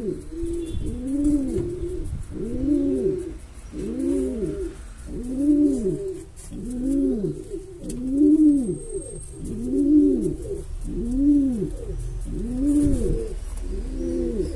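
Veleño pigeon cooing over and over: a steady series of rise-and-fall coos, about one every three-quarters of a second. The cooing is typical of nest-calling, given with the head lowered into a clay nest bowl.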